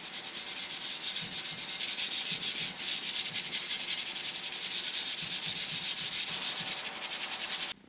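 Steel wool scrubbing a Chinese cleaver blade with cleanser in rapid back-and-forth strokes under running tap water, scouring off rust. A steady rasping hiss that stops abruptly near the end.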